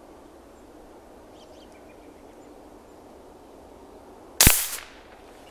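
One shot from a Daisy pellet rifle converted to fire from a 9-ounce gas tank through a ball valve, shooting a pellet: a single sharp crack about four and a half seconds in, dying away within half a second. The shooter judges there is a little too much pressure in the valve for pellets.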